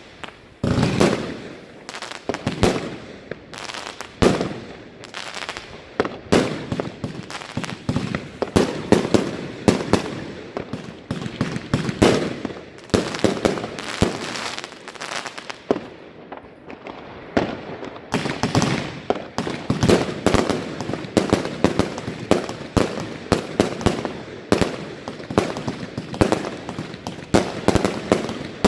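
Consumer firework batteries firing: a dense, continuous run of sharp bangs and crackling bursts, several a second, recorded through a phone microphone.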